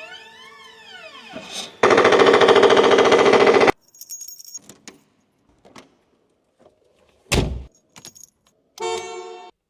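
Simulated machine-gun effect of an Aston Martin DB5 gadget car: a loud, rapid rattle lasting about two seconds, preceded by rising and falling electronic sweeping tones. After it come scattered clicks, a low thump, and a short electronic tone near the end.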